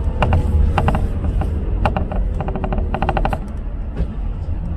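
Low, steady road rumble of a car driving, with several short, irregular bursts of rapid clicking or rattling in the first three and a half seconds.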